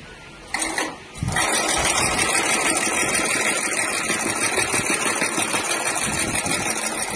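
Long cylinder-arm industrial sewing machine stitching a row through felt: a short run about half a second in, then steady fast stitching from just over a second in until the end.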